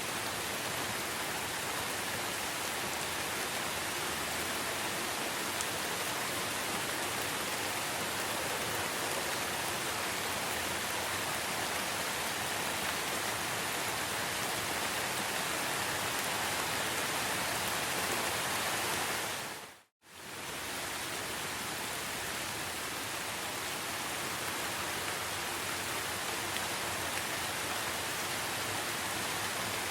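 Steady hiss of heavy rain falling in a forest. It fades out to silence for a moment about two-thirds of the way through and quickly fades back in.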